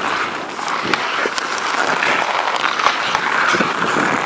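Pond hockey play on outdoor lake ice: skate blades scraping and carving the ice, with scattered sharp clacks of hockey sticks and puck.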